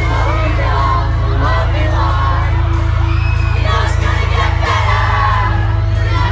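Loud live pop-rock from the band, with a steady heavy bass and a regular high beat, under a crowd screaming and singing along.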